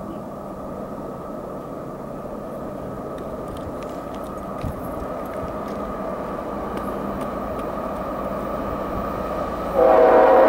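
CSX diesel freight locomotive approaching with a steady rumble that slowly grows louder, then its air horn sounds loudly near the end.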